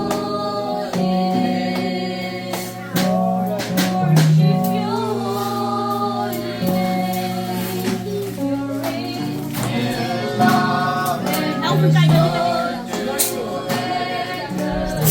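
Church congregation and choir singing a gospel worship song over instrumental accompaniment with percussion strokes.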